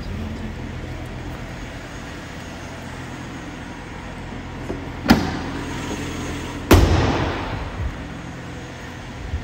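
Car hood being shut on a 2021 BMW X6: two bangs about a second and a half apart, the second the louder, echoing in a large hall. It is being closed properly after it was found not latched all the way.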